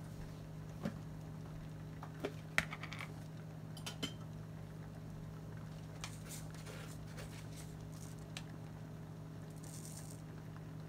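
A few scattered light clicks and clinks of kitchen pots and utensils, the sharpest about two and a half seconds in, over a steady low hum.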